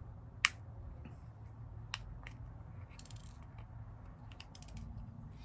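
A few light clicks and ticks from diamond-painting supplies being handled: a sharp click about half a second in, two softer ones near two seconds, then faint scattered ticking, over a low steady hum.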